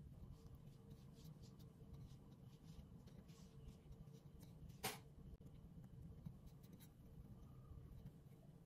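Faint scratching and rustling of a wooden rolling pin pressing and rolling laminated pastry dough over plastic wrap on a countertop, with one sharp click about five seconds in.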